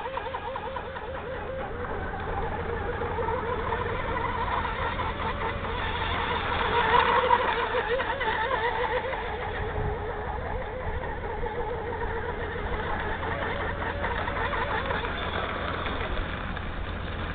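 Electric radio-controlled speedboat running flat out: the whine of its Turnigy 4074B brushless motor and propeller, wavering up and down in pitch, with a hiss of spray. It grows louder about six to eight seconds in.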